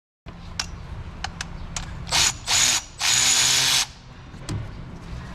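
A ratchet wrench cranking on a bolt during engine teardown: a few light clicks, then three loud rasping runs of the ratchet, the last one longest.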